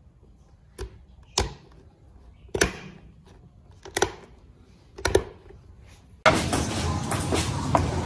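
Five sharp clicks and knocks, about a second apart, as parts are fitted onto a table fan's painted metal motor housing by hand. About six seconds in, a loud steady background noise cuts in suddenly.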